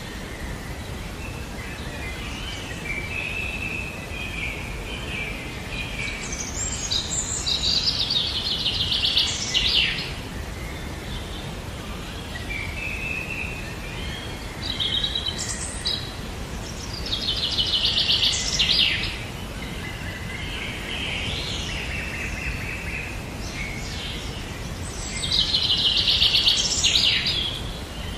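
A songbird singing the same song three times, each a rising run of notes ending in a loud, fast trill, over a steady faint hiss.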